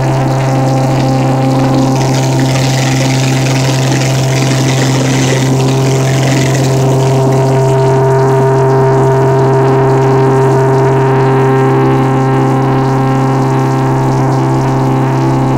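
Cabin drone of a small twin piston-engine propeller plane: a loud, steady low hum of engines and propellers with several steady higher tones over it, and a rushing hiss that swells and then eases in the first half.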